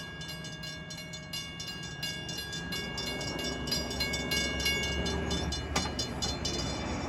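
Train running past with a low rumble. Over it is a fast, even ticking with ringing tones, which stops near the end.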